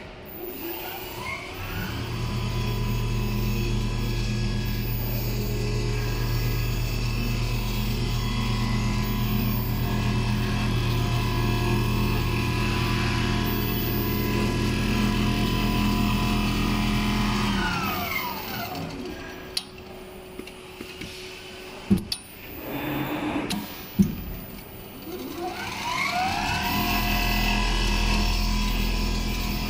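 Richpeace large-format automatic sewing machine running. Its sewing head speeds up with a rising whine, runs steadily for about fifteen seconds, then winds down to a stop. A few sharp clicks come while it is stopped, and it speeds up and runs again near the end.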